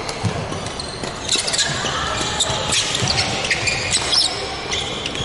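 Badminton doubles rally on a wooden court: rackets striking the shuttlecock and sports shoes squeaking on the floor in quick, irregular bursts, echoing in a large hall.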